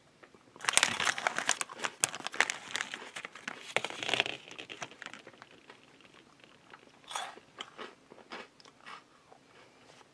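Crisp chocolate-coated puff balls crunched and chewed close to the microphone: a dense run of crackly crunching for about four seconds, then a few separate, sparser crunches near the end.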